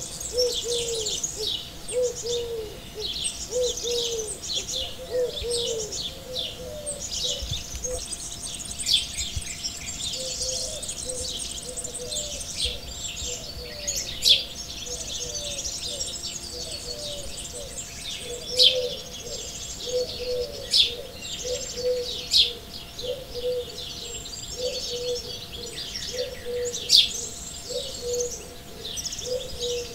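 Several birds singing and chirping, with many quick high calls over a low, short note that repeats over and over.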